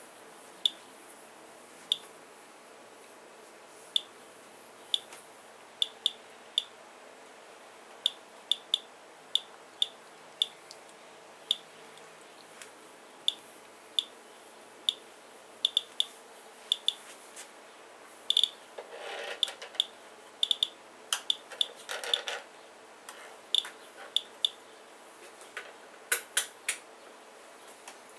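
Geiger counter clicking at random intervals, about one to two clicks a second, as it counts a collected rainwater sample averaging about 85 counts per minute. Two brief rustles come past the middle.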